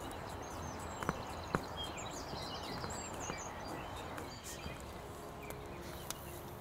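Small birds chirping and twittering over a steady outdoor hiss, with a few sharp clicks about a second in, again half a second later, and at the very end.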